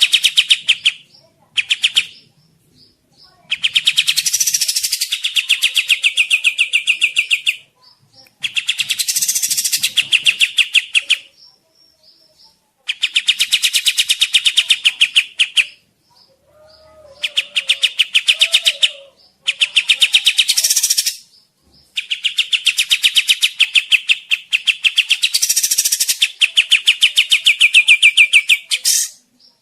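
Kapas tembak song played as a bird-trapping lure: loud, very fast rattling trills of about two to four seconds each, repeated again and again with short pauses between them.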